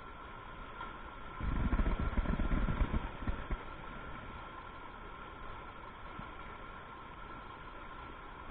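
Steady rush of river water over rocks. A low rumbling burst lasts about two seconds, starting about a second and a half in.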